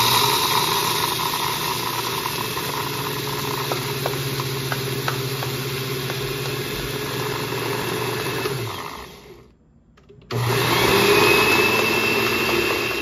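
Countertop blender motor grinding dry sunflower seeds into a coarse meal: it runs steadily for about nine seconds and winds down, then, after a gap of about a second, it starts again for a second run near the end.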